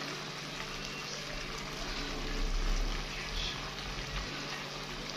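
Steady hiss with a low, even hum underneath and a short low rumble about two and a half seconds in.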